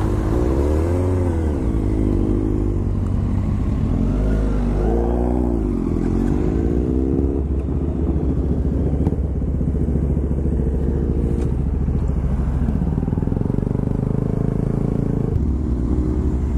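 Sport bike engine running under way, its revs climbing and dropping a few times in the first half, then holding steadier.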